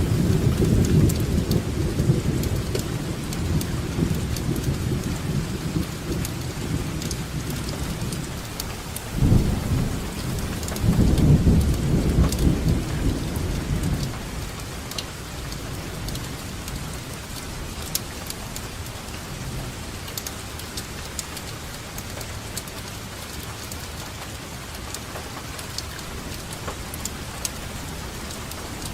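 Steady rainfall with drops pattering, and rolling thunder underneath. One long rumble fades away over the first several seconds, another swells about a third of the way in, and the last half is rain alone.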